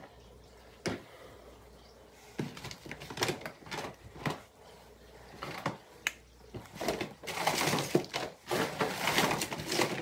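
Makeup products and their packaging being rummaged through in a cardboard box: a few scattered knocks and clicks, then steady rustling and crinkling of packaging for the last three seconds or so.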